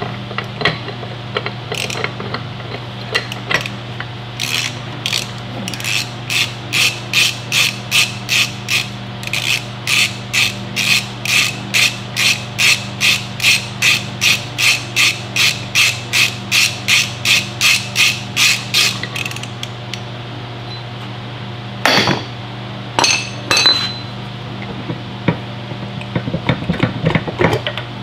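Hand ratchet clicking in quick, even strokes, about two a second, as the Dana 60 spindle nuts are spun off with a 4-pin spindle nut socket. A few sharp metal clanks follow near the end.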